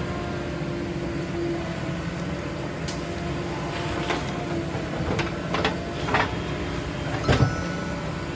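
A heavy diesel engine running steadily, with a series of sharp knocks and clanks in the second half, the loudest near the end.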